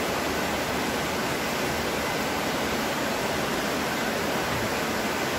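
Steady hiss of background noise, even and unchanging, with no distinct clicks or other events.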